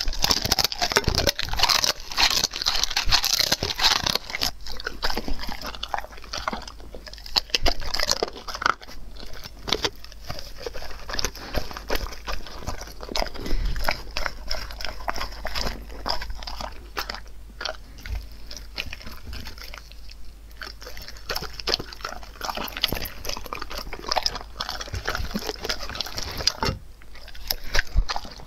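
German Shepherd dog chewing and crunching food close to the microphone: a dense run of irregular crunchy bites and wet chewing, with a few short pauses.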